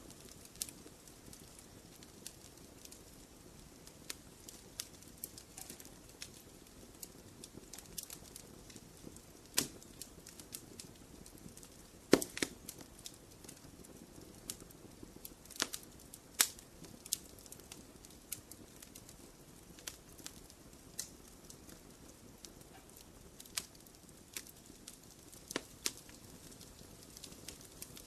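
Wood fire in a fireplace crackling over a low steady rush, with irregular sharp pops, the loudest about twelve seconds in.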